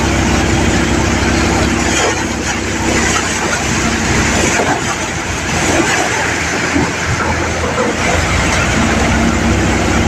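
A Mahindra 575 DI diesel tractor drives a paddy thresher, which runs loudly as bundles of rice straw are fed into its drum. The steady hum of the engine and drum fades for a few seconds in the middle and comes back strongly near the end.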